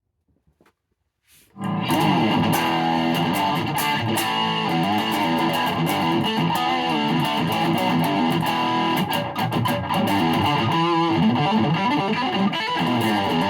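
Ibanez SA260 electric guitar played through an amplifier, a continuous run of picked notes starting about a second and a half in.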